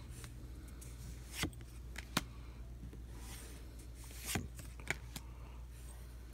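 Pokémon trading cards being flipped through one at a time in the hands: four short crisp snaps of card against card and a soft sliding rustle, over a faint low hum.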